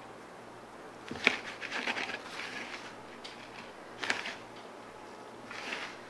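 Fingers raking through freshly hydrated instant snow in a plastic tray: short rustling scratches in three bouts, the first starting with a sharp click.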